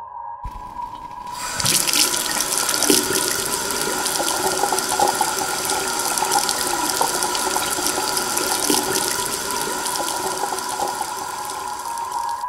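Water gushing from taps into a sink, a steady hiss that starts about a second in, over a held electronic drone.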